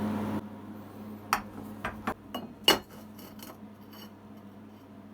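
Light metallic clinks and taps, about six in quick succession with the loudest near the middle, as metal pieces for the next weld are handled, over a faint steady hum.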